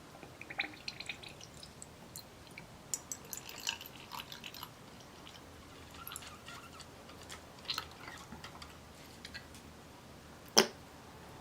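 Scattered light clicks, taps and short scrapes of small metal parts and hand tools being handled during medal restoration, with one sharper click near the end.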